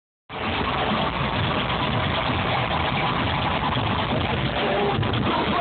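A live rock band playing loud, a dense, muddy wash of sound with no clear notes, cutting in abruptly just after the start.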